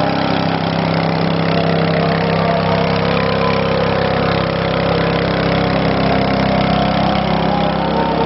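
An engine running steadily at an even idle: a constant hum that holds the same pitch and level throughout.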